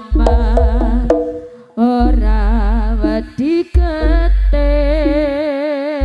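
Javanese jaranan music through a sound system: a wavering, ornamented melody over loud low bass, in phrases of a second or two with short breaks between them.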